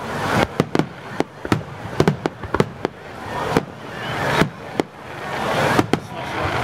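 Aerial firework shells bursting in quick, irregular succession: a rapid string of sharp bangs and booms, over a hiss that swells between them.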